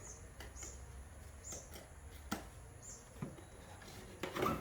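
Handling of telescope parts and their packaging: scattered small clicks and rustles, with one sharp click about halfway through and a louder cluster of knocks near the end.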